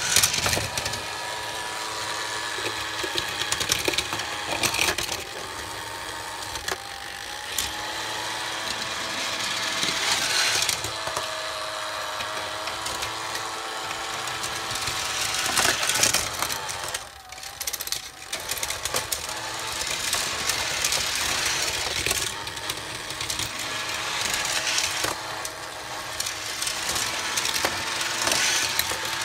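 Battery-powered Tomica toy road playset running: its small electric motor and gears whirring steadily, with die-cast toy cars rattling along the plastic track.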